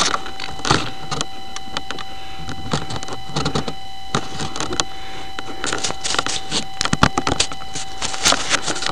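Rustling, scraping and knocking as a foam RC model plane, a GWS Focke-Wulf 190, is handled and lifted out of tall grass, heard close up through the plane's own onboard camera. A steady high whine runs underneath, and the sound cuts off abruptly at the end.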